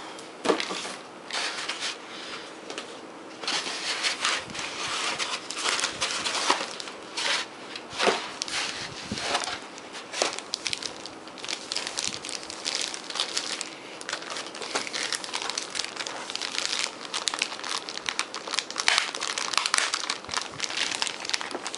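Clear plastic wrap and a plastic bag crinkling and rustling as they are handled, with a few sharper knocks, denser and busier in the second half.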